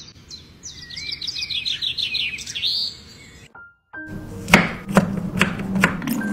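A bird twittering rapidly for about three seconds, then a short pause. A tiny knife then chops on a wooden board, about two cuts a second, over music with soft held notes.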